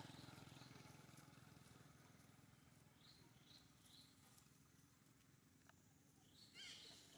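Near silence: a faint engine hum fades out over the first few seconds. About three seconds in come three short high chirps, and near the end a brief, louder squeaky call.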